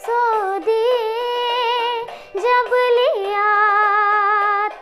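A young girl singing, holding long, ornamented notes in two phrases with a short breath between them about two seconds in.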